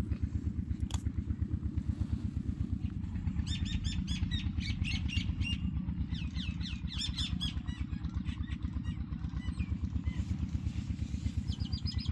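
An engine running steadily nearby, with an even low thudding beat. Birds chirp in quick runs of calls in the middle and again near the end.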